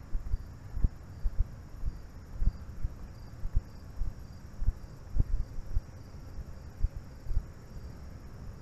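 Irregular low thumps and rumbles on the microphone of a camera carried along a path, over a faint, steady high trill of crickets.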